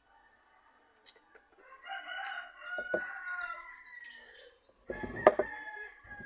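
A rooster crowing, one long call of about three seconds, with a second call near the end. Sharp knocks cut in, the loudest about five seconds in.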